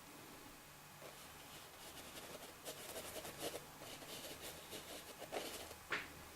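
Paintbrush strokes and dabs on a canvas: a run of quick, light scratchy strokes starting about two seconds in, with a sharper stroke near the end.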